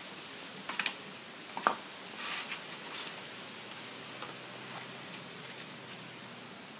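A golden retriever puppy licking and pawing at a block of ice in a plastic tub: a few scattered short knocks and a brief scrape of ice and claws against the plastic, over a steady hiss.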